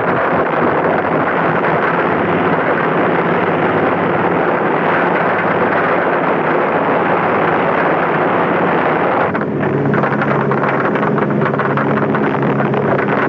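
Piston aircraft engines droning in flight: a steady engine hum under loud rushing air. About nine seconds in the rush eases a little and the engine hum comes through more plainly.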